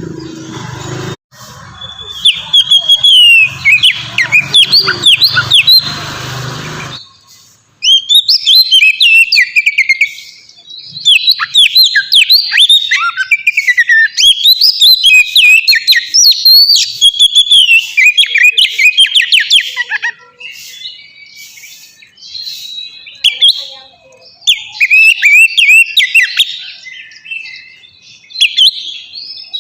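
Oriental magpie-robin (kacer) singing loud, fast phrases of sweeping, chattering notes in bursts, with short pauses between song bouts. A steady hiss lies under the song for the first seven seconds, then drops away.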